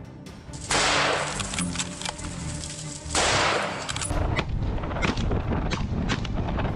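Two loud gunshots about two and a half seconds apart, each with a long echoing tail, followed by a quicker run of sharper cracks, all over background music.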